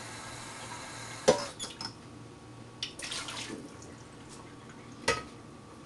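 Dishes being washed in a kitchen sink: a sharp clink of crockery about a second in with a few smaller clatters after it, a short splash of water around three seconds in, and another sharp clink near the end.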